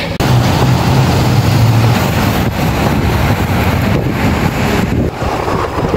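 Kick scooter's wheels rolling on a concrete sidewalk, a continuous rough rumble, with wind buffeting the phone's microphone.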